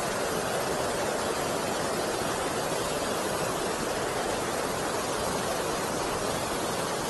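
Water rushing steadily over and below a river weir, an even rushing sound.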